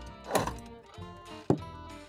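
Background music with two added sound effects: a swishing hit about a third of a second in, then a sharp thump about a second and a half in.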